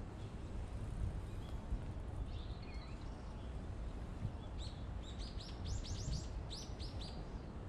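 Small bird calling: a few faint chirps, then about halfway through a rapid run of about a dozen short, high, downward-sliding notes in two bursts, over a low steady background rumble.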